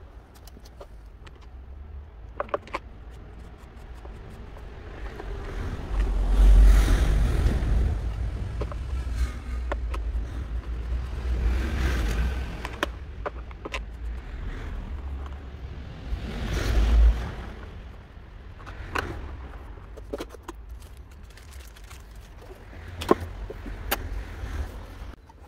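Clicks and knocks of plastic and metal parts as a new chain is fitted to an electric chainsaw and its side-cover tensioning knob is turned, with a few spells of low rumble.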